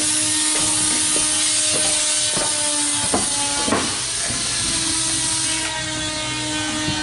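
Steady, loud hissing noise with a low hum under it and faint regular ticks, a little under two a second. The hiss thins about three-quarters of the way through.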